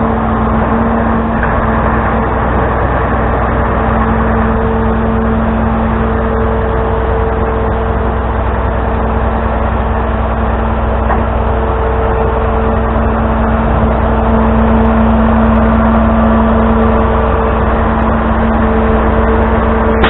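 Tow truck's engine running at a steady speed, a constant hum with a deep rumble underneath that grows a little louder about two-thirds of the way through.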